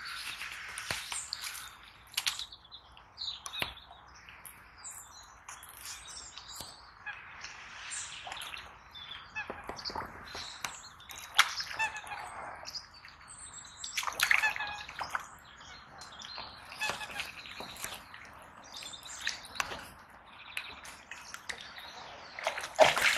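Birds singing and calling, with many short chirps scattered throughout. Brief knocks and rustles come now and then over the top.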